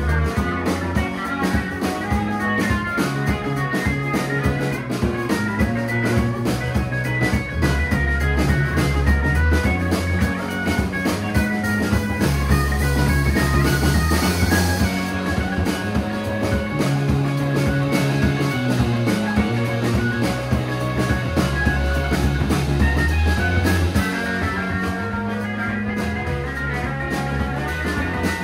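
Live rock band playing a song: electric guitars, bass and drum kit with cymbals, loud and continuous.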